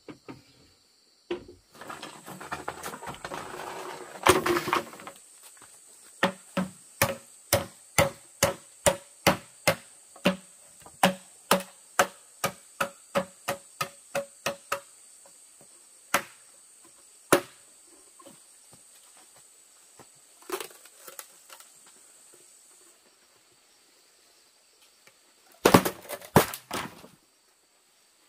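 A hand tool strikes something hard in a steady run of sharp knocks, about two a second, then a few scattered knocks and a loud quick cluster near the end. Insects trill steadily underneath, and a scraping rustle comes just before the knocking begins.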